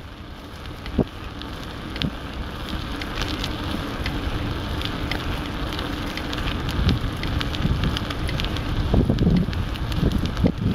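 Wind buffeting the microphone while moving along an open road, a low rumble that grows steadily louder, with scattered fine crackles over it.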